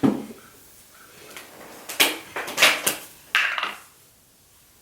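A knock as a product bottle is handled, then a few short squirts of hair product from a spray bottle, about two to three and a half seconds in.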